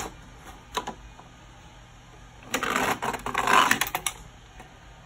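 Plastic toy train set clattering and clicking as a hand moves an engine on the turntable, a few single clicks and then a dense second-and-a-half of rattling about two and a half seconds in. Under it runs the faint steady hum of a hair dryer in another room.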